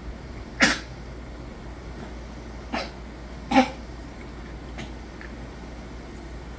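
A pet dog or cat coughing three times within about three seconds, the second cough weaker than the other two, over a steady low hum. The coughing is the sign of fluid in the lungs.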